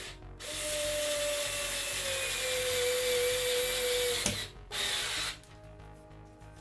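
Topshak TS-ESD1 4 V cordless screwdriver whirring as it drives a 3.5 × 30 mm screw into chipboard with no pilot hole, its pitch sagging slightly as the screw goes deeper; the screw goes in without any struggle. After about four seconds a sharp click, then a brief second half-second burst of running.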